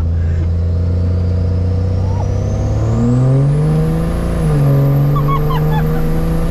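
2005 Cummins 5.9 diesel truck engine heard from inside the cab. It runs steadily, then accelerates from about two seconds in, its note climbing, with a turbo whistle rising in pitch. Near the middle it dips slightly and then holds a higher steady note.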